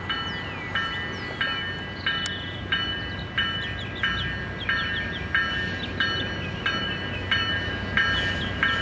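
Railroad grade crossing bell ringing at an even pace, about three strokes every two seconds, over the low rumble of a train.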